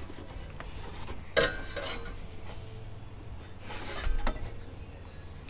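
Metal clinking and scraping from hand tools and exhaust hardware being handled. There is a sharp ringing clank about a second and a half in, and a few more clinks around four seconds in.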